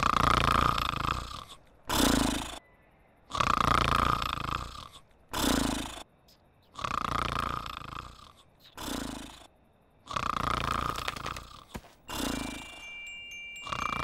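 Exaggerated cartoon snoring from a sleeping sheep: a long loud snore followed by a shorter one, the pair repeating evenly about every three and a half seconds, four times over.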